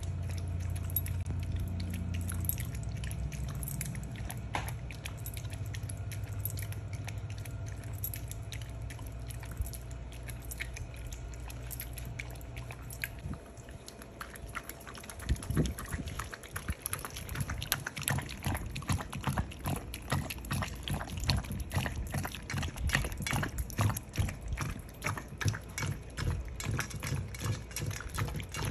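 Dogs lapping thick squash and chicken soup from a stainless steel bowl, with quick wet licks. One dog laps alone at first over a low steady hum; about halfway a second dog joins, and the lapping becomes faster, denser and louder.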